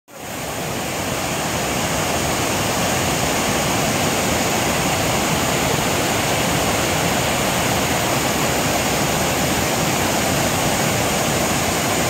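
Water spilling over a low concrete weir in a steady rush, the overflow tumbling through rocks below. The sound fades in over the first second.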